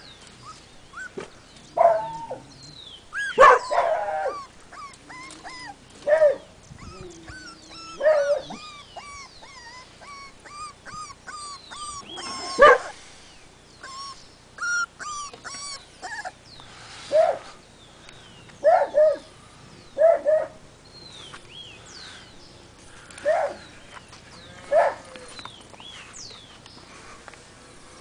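Beagle puppies yapping: about a dozen short, high yelps and barks, scattered irregularly with pauses between.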